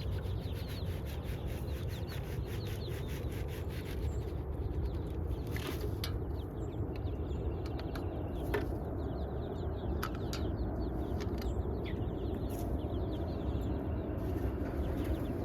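Red sex-link pullets cheeping faintly over a steady low rumble, with scattered clicks and knocks and a quick run of ticks in the first few seconds.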